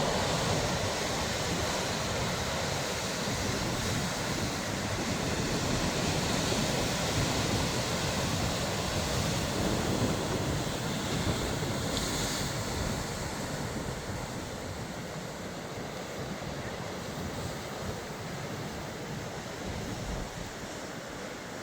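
Sea surf washing against the shore, a steady rushing wash of waves that eases a little in the second half.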